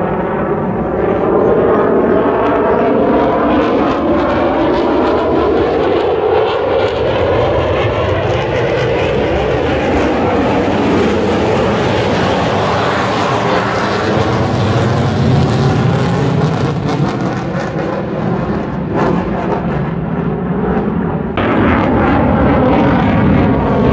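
Jet aircraft flying overhead: a loud, continuous engine roar with a slowly sweeping, phasing tone as it moves across the sky, growing brighter near the end.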